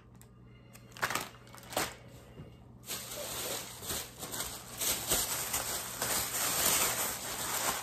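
Thin plastic shopping bag rustling and crinkling as hands rummage through it, starting about three seconds in after a couple of soft knocks.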